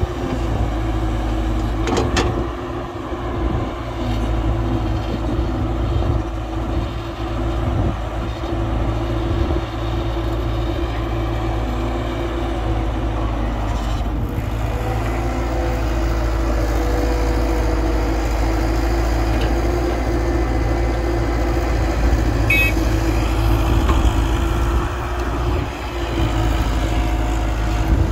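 Heavy construction machinery's diesel engine running steadily with a low rumble and a humming tone, with a sharp click about two seconds in.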